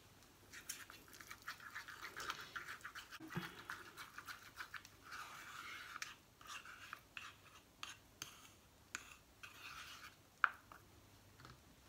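Wooden stick stirring and scraping a thick paste against the inside of a small stainless steel saucepan, in a faint, quick run of short scraping strokes.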